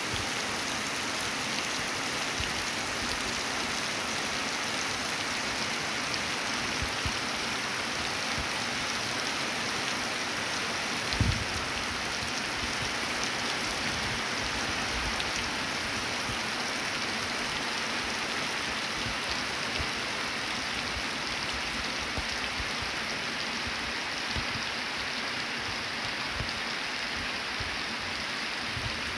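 Steady rain falling, an even hiss with no pauses. A single brief low thump about eleven seconds in.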